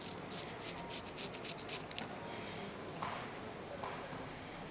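Straight razor scraping through lathered stubble in quick short strokes, about four or five a second for the first two seconds, then a few slower, softer strokes.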